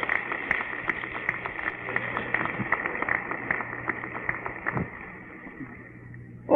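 Congregation applauding: a dense patter of many hands clapping, thinning and fading out near the end.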